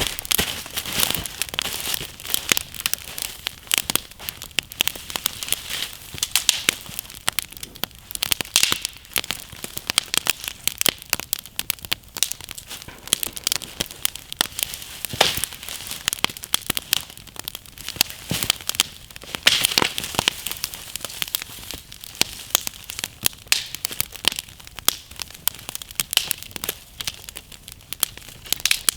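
Wood campfire crackling, with a dense run of irregular pops and snaps and now and then a louder crack.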